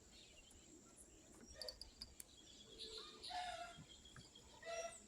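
Quiet open-air ambience with faint bird calls: a few short pitched calls, the clearest about three and a half seconds in and again near the end.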